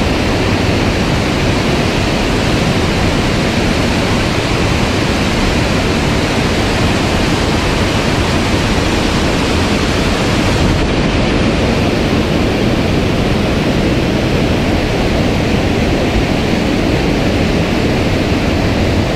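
Steady, loud rush of a mountain stream running high, water pouring over rocks.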